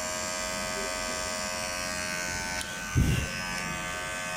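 Electric hair trimmer running with a steady hum and no rattle, its loose blade now fixed. A short low thump sounds about three seconds in.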